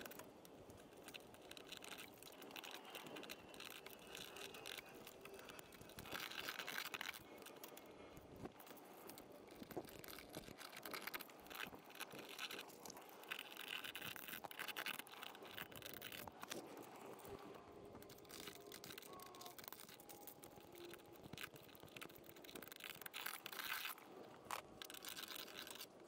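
Faint hand scraping and scrubbing on a steel plate bonded to the firewall: a round file cleaning out the bolt holes and a Scotch-Brite pad scuffing the metal to prep it for paint, in short bouts of quick strokes with pauses between.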